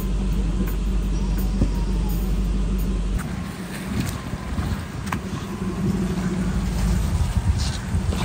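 Toyota 4x4 truck driving on a rough dirt trail: steady engine and drivetrain rumble with a few sharp knocks. The deepest part of the rumble drops away about three seconds in.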